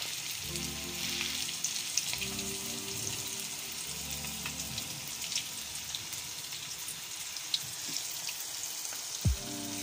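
Carrot balls deep-frying in hot cooking oil in a wok: a steady sizzle with scattered crackles. There is a dull knock near the end.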